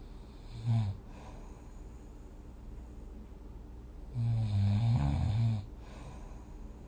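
A person snoring while dozing: a brief snore just under a second in, then one longer snore of about a second and a half, wavering in pitch, around four seconds in.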